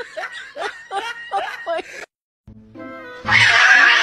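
A high voice giggling in short rising and falling bursts for about two seconds. After a brief silence comes music, with a loud noisy burst near the end.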